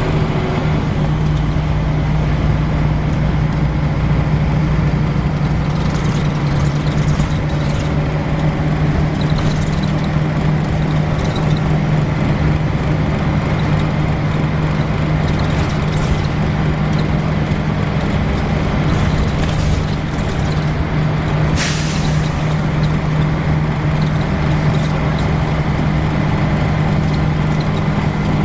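Volvo B10BLE bus diesel engine running steadily at an even, unchanging pitch, with one short hiss of air from the air system about three-quarters of the way through.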